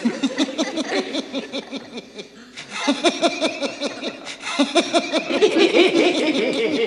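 People laughing in quick, repeated bursts, dropping off briefly about two and a half seconds in and then picking up again louder.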